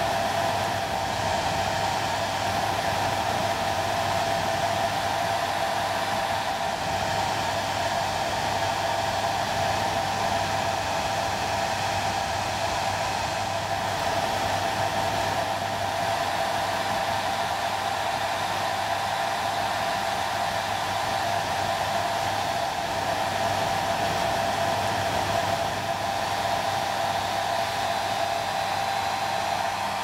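Handheld hair dryer blowing steadily: an even rush of air with a constant whine and a low hum underneath.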